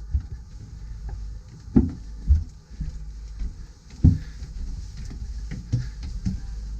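Footsteps climbing a staircase: irregular, uneven thumps a second or two apart over a steady low rumble.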